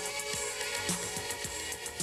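Instrumental background music with a steady drum beat and sustained melodic tones.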